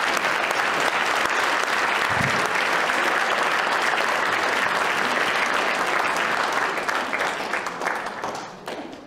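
Audience applauding at length, a dense steady clapping that thins out over the last two seconds into a few scattered claps.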